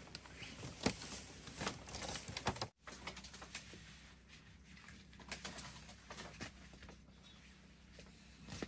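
Rustling and light knocks of a person moving about on a bamboo slat bed, loudest in the first few seconds, with a bird calling in the background.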